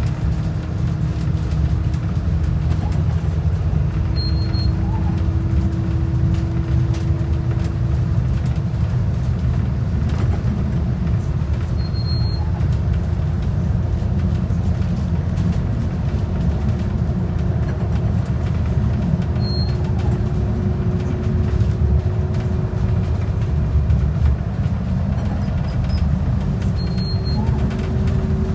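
Transit bus running steadily, a low engine and road rumble with a faint whine that slowly rises in pitch. A short high beep sounds four times, about every seven seconds.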